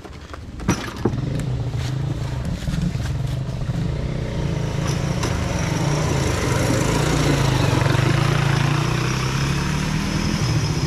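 Small motorcycle engine of a brujita, the motorbike-pushed rail cart, running steadily; it comes in about a second in and grows louder over the next several seconds.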